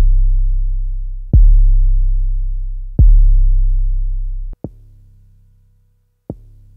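Synthesized 808 bass drum playing repeated hits about every one and a half seconds, each a deep boom with a click at the start that dies away slowly. For the last two hits, a high-pass filter simulating a smartphone speaker cuts away the low boom, leaving only the short click of the attack and a faint thin tail: the 808's resonance is lost.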